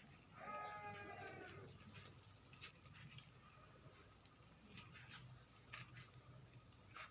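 A cat meows once, about a second long, near the start, followed by faint scattered clicks and taps.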